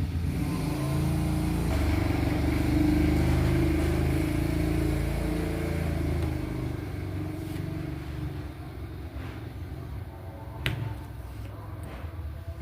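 A motor vehicle's engine, louder a couple of seconds in and then slowly fading, as if passing by. A single sharp click comes near the end.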